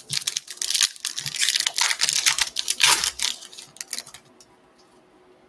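Foil wrapper of a Bowman baseball card pack crinkling and tearing as it is ripped open by hand, a dense run of crackles that dies away about three and a half seconds in.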